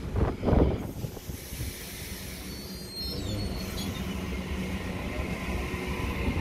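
Sydney Trains double-deck electric train running slowly along the platform with a steady rumble, a brief high wheel squeal about three seconds in, and a couple of loud low thumps near the start.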